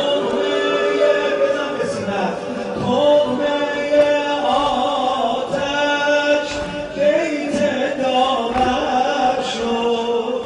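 A man chanting a mournful Persian elegy in a slow, long-held melody into a microphone.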